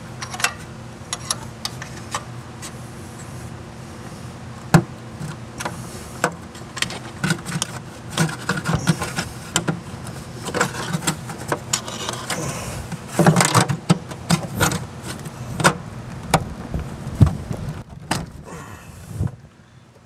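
Metal clicking, scraping and knocking of tools as a long bolt threaded into the stuck lower section of a 6.0 L Powerstroke high-pressure oil standpipe is twisted and pulled to free it from the head. The knocks are irregular, with a busier stretch of clattering a little past the middle, over a steady low hum.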